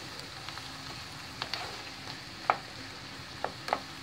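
Diced asparagus and onion sizzling steadily in butter in a frying pan, with a wooden spoon knocking against the pan as it is stirred: a few sharp knocks, the loudest about two and a half seconds in.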